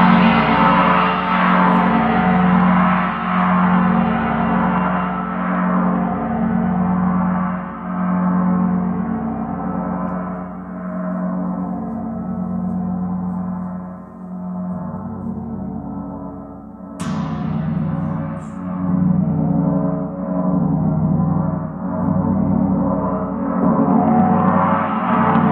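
Rotogong, a large gong spinning on its stand, ringing in a long sustained wash that pulses in and out about once a second. About two-thirds of the way in it is struck again with a mallet, and the ringing swells back up.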